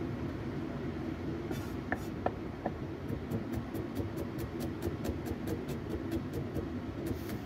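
Chinese cleaver chopping garlic on a wooden chopping block, a few scattered knocks at first, then from about three seconds in a rapid, even run of blade strikes at about four or five a second.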